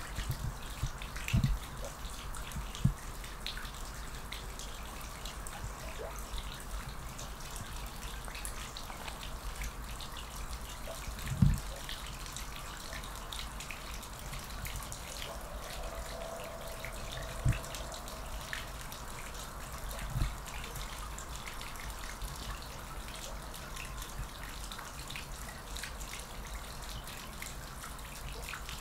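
Quiet outdoor garden ambience: a steady low rumble with many scattered faint ticks, and four or five soft low thumps, the loudest a little before midway.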